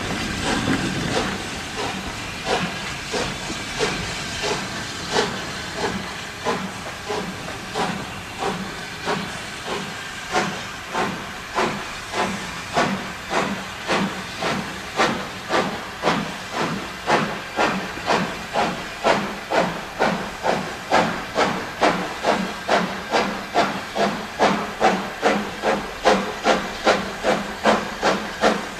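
USATC S160 2-8-0 steam locomotive working a passenger train, its chimney exhaust beating in a steady rhythm over the hiss of steam. The beats grow louder and quicker as it gathers speed.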